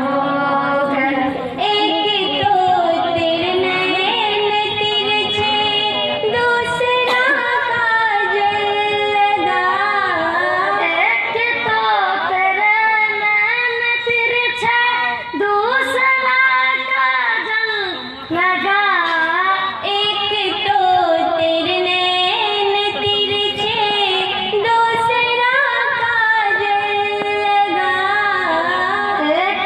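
A young woman singing a song into a handheld microphone, with long held, bending notes.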